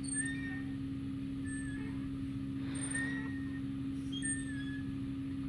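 A metal swing set's hangers squeaking as a child swings high: four short squeals at a steady swing rhythm, over a steady low hum.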